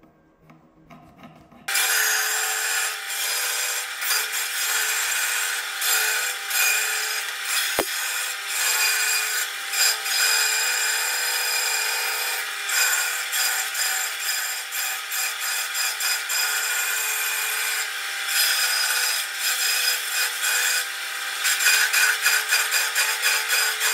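Band saw running and cutting through a block of wood, starting about two seconds in, with a steady whine under the rasp of the blade in the wood. Near the end the sound pulses quickly as a run of short cuts is made into the block.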